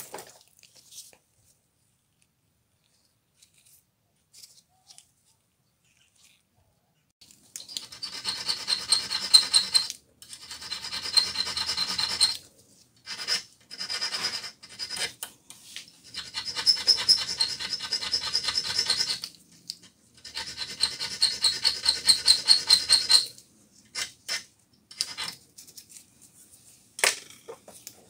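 Metal file rasping across the steel tip of a small flat screwdriver held in a vise, dressing the blade square: quick back-and-forth strokes in several runs of a few seconds with short pauses, the steel ringing faintly with each stroke. A single sharp click near the end.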